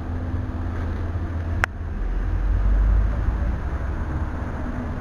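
Deep thunder rumbling through a steady noisy storm background, swelling to its loudest around the middle and then fading. There is a sharp click about a second and a half in.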